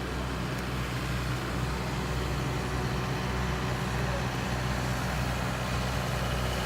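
Water-well drilling rig's engine running steadily at a constant speed, a low, even drone while the rig drills a borehole.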